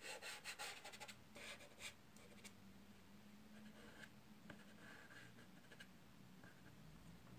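Soft pastel stroking and scratching across rough, textured paper as a light colour is laid on: a quick run of short strokes in the first two and a half seconds, then fainter, sparser strokes.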